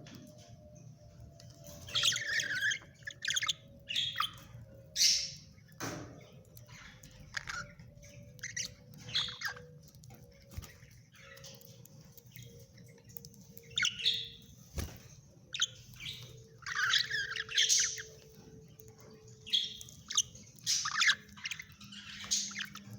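Young pet parrots giving short, scratchy squawks and chirps in irregular bursts, about a dozen calls with short pauses between them.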